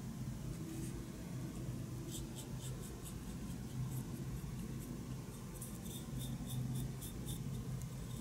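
Fine paintbrush dabbing and scratching black paint onto a small chrome model engine part: a run of quick, faint scratchy ticks starting about two seconds in, over a steady low hum.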